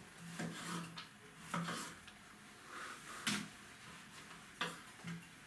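Kitchen knife cutting a cucumber on a cutting board: irregular knocks and clicks of the blade against the board, with short scraping sounds between, the sharpest knock about three seconds in.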